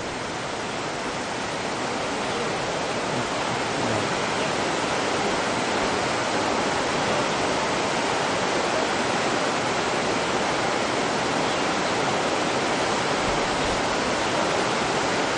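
Rushing water, like a fast-flowing stream, running as a loud, steady roar that swells slightly over the first few seconds.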